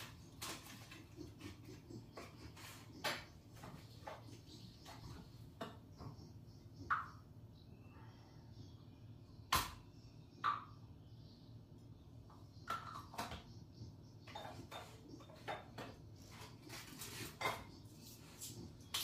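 Scattered light clicks, taps and clatter of medicine packets and a glass being handled at a kitchen counter, with one sharper knock about halfway through.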